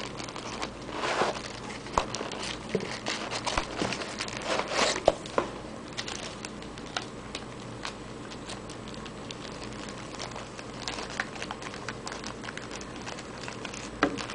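Plastic packaging crinkling and rustling as graded card holders are unwrapped and handled, with scattered sharp clicks. The crackling is busiest in the first half and thins out to occasional ticks.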